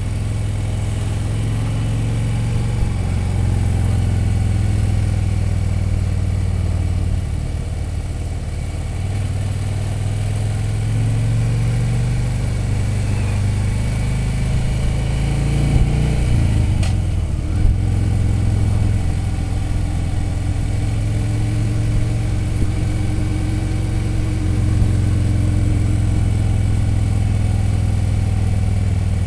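Touring motorcycle's engine running steadily while riding along a winding road, heard from the rider's seat. About halfway through there is a short change in the engine note, followed by a sharp click.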